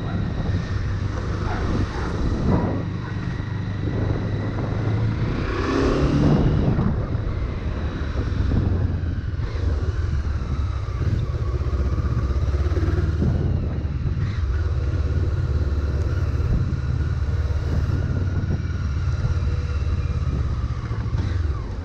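Honda CB500 motorcycle's parallel-twin engine running under way, heard from the saddle, its note rising and falling as the bike accelerates and slows in traffic.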